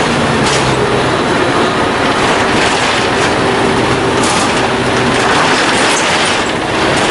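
A 1997 Isuzu KC-LV380N city bus under way, heard from inside the passenger cabin: a steady run of its Isuzu diesel engine mixed with road and body noise.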